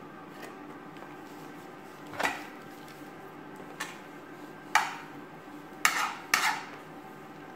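Samosa pastry sheets being handled and folded on a crinkly foil tray: five short, sharp handling noises, the last two close together, over a steady low hum.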